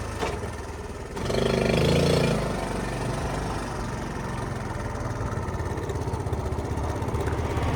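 Honda Cub C70 72cc single-cylinder four-stroke engine running. It revs up briefly about a second in as the bike moves off, then settles to a steady drone.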